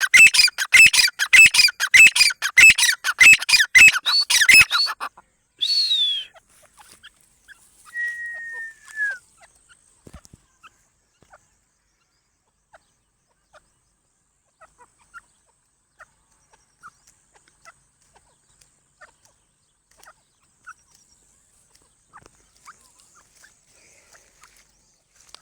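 Teetar (francolin) calling a rapid run of loud, repeated notes, about three or four a second, for roughly five seconds. A single shorter call follows, then a brief whistled note that falls at its end, then only faint scattered ticks.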